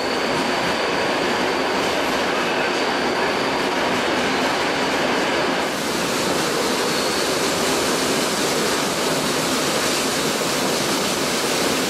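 Flåm Railway train running along the track, heard from aboard: a steady, even rush of wheel and rail noise.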